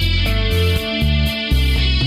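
Background rock music with guitar, steady beat and moving bass line.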